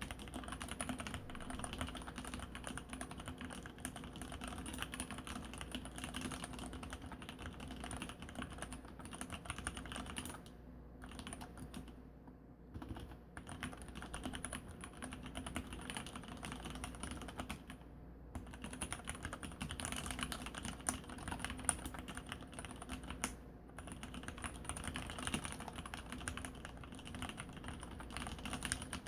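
Mechanical keyboard with Cherry MX Black linear switches, sliders lubed with Krytox 103 and 55 g springs, typed on in a steady stream of key clicks with a few brief pauses.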